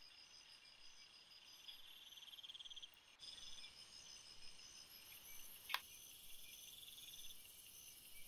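Faint insects chirping in the background, with steady repeating high trills and pulses. There is a single sharp click a little before six seconds in.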